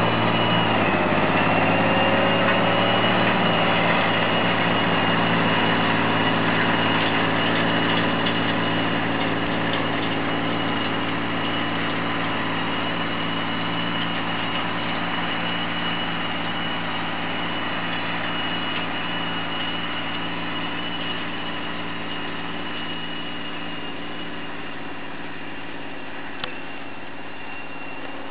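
John Deere 8220 tractor's six-cylinder diesel engine running steadily under load while pulling a disc harrow through the soil. It fades gradually as the tractor draws away.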